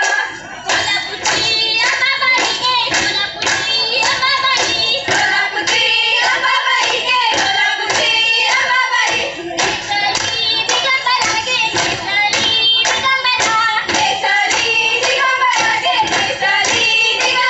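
Women's group singing a Goan fugdi folk song, with steady rhythmic hand clapping at about two claps a second.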